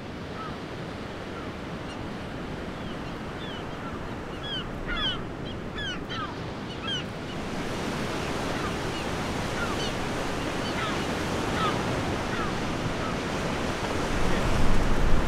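Ocean surf washing steadily, growing louder near the end, with short high chirps scattered over it, thickest from about four to seven seconds in.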